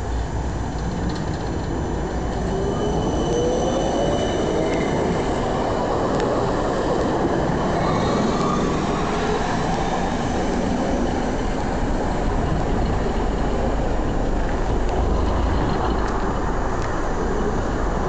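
Siemens Combino electric tram passing close by: steady rolling noise of steel wheels on the rails with electric motor whine, a tone rising in pitch a few seconds in, and faint high wheel squeal around then.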